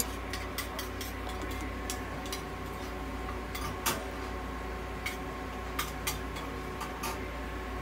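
Steady hum of running inhalation and oxygen therapy equipment with a faint high whine, broken by scattered light clicks and ticks.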